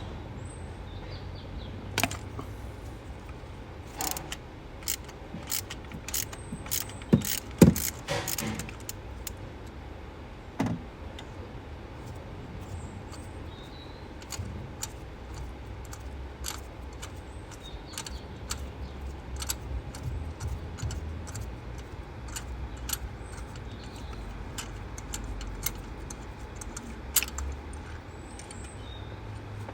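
Irregular clicks and metallic clinks of hand tools and parts being handled on the engine while a spark plug and coil pack are taken out, with a cluster of louder knocks and short squeaks about seven to eight seconds in.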